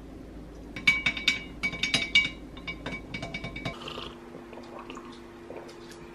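Glass clinking: a rapid run of bright, ringing taps for about three seconds that then stops, followed by faint small clicks over a low steady hum.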